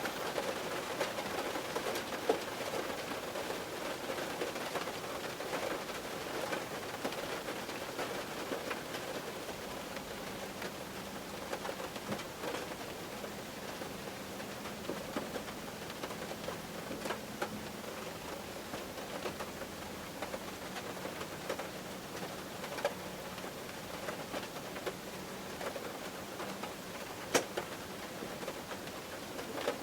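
Steady rain on a car roof: a dense patter of drops with a few louder single drops, about two seconds in and near the end.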